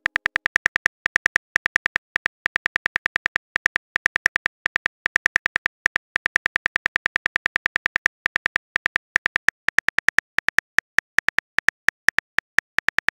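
Phone keyboard tap clicks: a rapid, uneven run of short clicks, several a second, as a text message is typed out.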